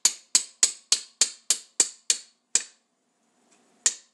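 Hammer tapping a BMX crank spindle through the sealed bearings of an American bottom bracket: quick sharp strikes with a short ring, about three a second, then a pause and one more strike near the end.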